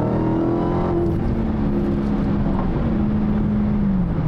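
Supercharged 6.2-litre V8 of a Dodge Hellcat Redeye heard from inside the cabin, revving up under acceleration. Its pitch climbs at the start, settles about a second in and drops off near the end as the throttle eases.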